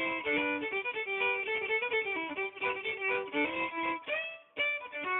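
Background music: a fiddle tune with a lively melody, ending on short notes and a final held chord.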